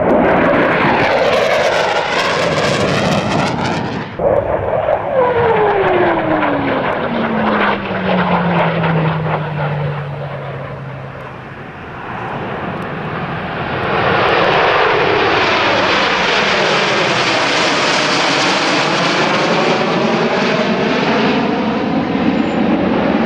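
Military jets flying past in successive passes: a fighter jet, then the Snowbirds' formation of CT-114 Tutor jets. In one pass an engine whine falls steadily in pitch over several seconds as the jet goes by. The last pass is a long, loud rush of jet noise that swells and then fades.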